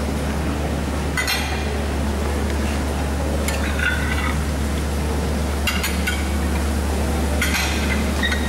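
Dishes and cutlery clinking a few times over a steady low hum.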